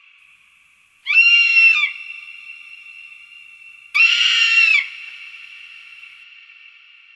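Falcon giving two harsh screaming calls, each under a second long and about three seconds apart, each followed by a lingering ringing tone that slowly fades.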